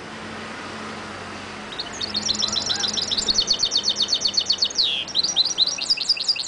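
Caged mulet (goldfinch × canary hybrid) singing: a loud, high, rapid trill of evenly repeated notes, about nine a second, starting a couple of seconds in. Near the end it gives a downward slur, then a faster, more varied twittering run.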